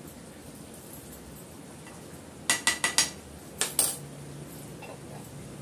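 A metal spoon tapped against the rim of a metal cooking pan to knock off spice powder: four quick ringing clinks about halfway through, then two more a second later.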